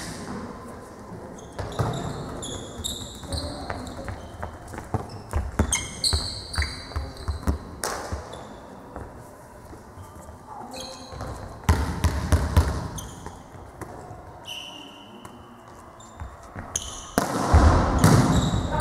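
Sports hall sounds during volleyball: a ball bouncing on the hard court floor in short series, sneakers squeaking, and players' voices echoing in the large hall. Near the end the voices and play get louder.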